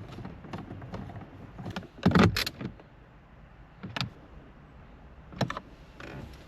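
Handling clicks and clatter of a ratchet extension and bolt being fished into a bolt hole in a car's dash trim, with a louder rattle about two seconds in and single clicks near four and five and a half seconds.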